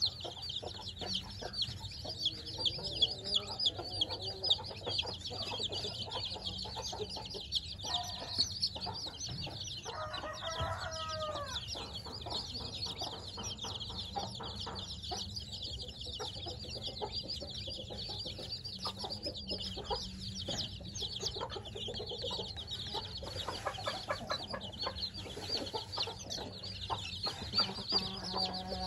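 A brood of week-old chicks peeping continuously, a dense run of high-pitched chirps, with a lower call from an adult chicken about ten seconds in.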